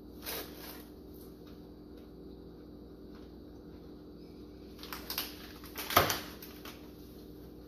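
A crunchy bite into a toffee shortbread cookie just after the start, then near the end a brief rustle and a sharp knock as a plastic-wrapped sleeve of cookies is set down on the countertop, the loudest sound. A faint steady hum runs underneath.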